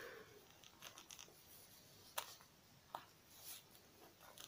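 Near silence with faint rustling of fabric being smoothed and pinned by hand, and two faint clicks about two and three seconds in.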